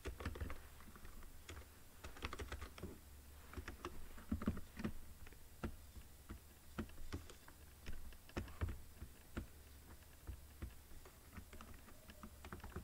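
Computer keyboard typing: quick, irregular key clicks with short pauses, over a low steady hum.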